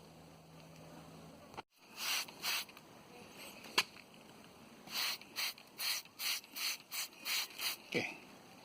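Short hissing spritzes, two about two seconds in and then a quick run of about ten at three or four a second: a trigger spray bottle spraying onto a repaired tire to check it for leak bubbles.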